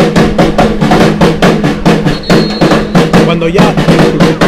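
Supporters' batucada drum group playing a fast, even samba rhythm on bass and snare drums.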